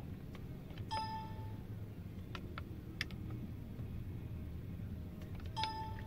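Two short electronic dings from the scan-tool computer as parameters are clicked on screen, one about a second in and one near the end. A few faint clicks fall between them, over a steady low hum.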